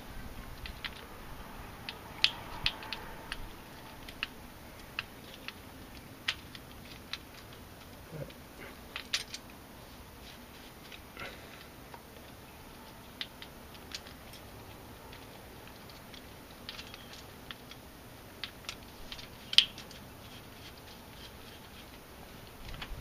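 Light metallic clicks and taps, scattered irregularly, as aluminium roller rocker arms and their bolts are handled and set onto the pedestals and pushrods of a Jeep 4.0 cylinder head. One sharper click comes late on.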